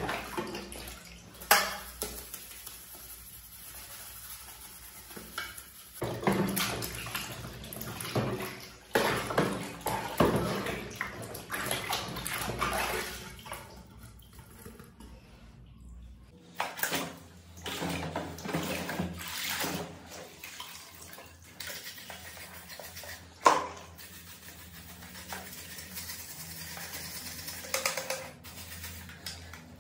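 Metal computer parts being sloshed and scrubbed by hand in a basin of soapy water: irregular splashing and swishing, with two sharp knocks of a part against the basin, one near the start and one about two-thirds through.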